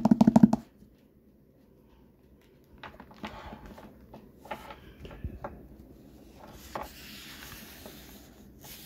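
Hardback book being handled: the cover opened and fingers brushing and tapping on the paper, soft rustles and light taps with a faint brushing hiss near the end.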